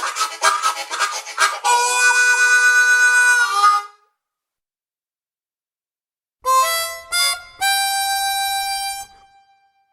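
Harmonica playing a quick run of rapid, rhythmic chords that turns into a held chord, which stops abruptly. After a few seconds of silence, a second harmonica clip plays two short notes and then a held note that fades away.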